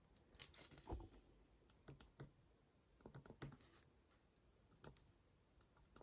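Near silence with a few faint, scattered taps and light scratches of a fine-liner pen and hand on watercolour paper.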